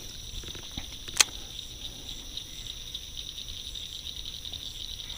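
Steady, high insect chorus chirring with a fine rapid pulse, with a single sharp click about a second in.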